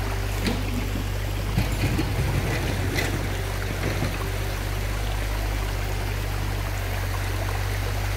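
Shallow, fast river water rushing over rocks in a steady wash, with a few short splashes as a child wades through it.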